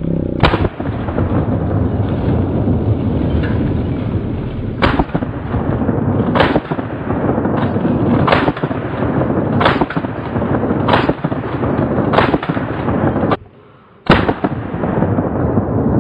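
12-gauge Ithaca Model 37 pump shotgun firing about eight shots, mostly a second and a half or so apart, the echo carrying on between them. The sound drops out briefly just before the last shot.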